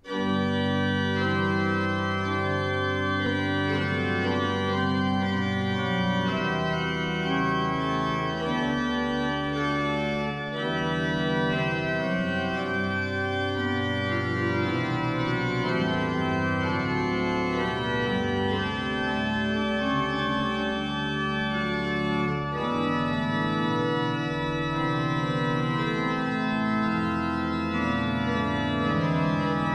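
Bätz pipe organ playing a piece in sustained chords over held bass notes. It comes in suddenly at full strength.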